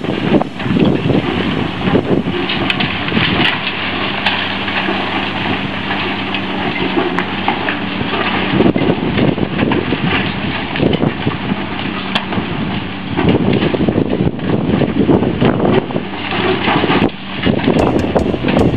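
Demolition excavator's diesel engine running while its hydraulic crusher jaw bites into a reinforced-concrete wall, with many sharp cracks and clatters of breaking concrete and falling debris.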